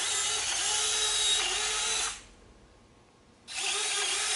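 CAN-bus servos turning the ring gears of a 3D-printed three-bearing swivel duct through brass pinion gears, a steady gear-motor whir with a wavering whine as the duct swivels. The movement stops about two seconds in and, after a pause of over a second, starts again near the end.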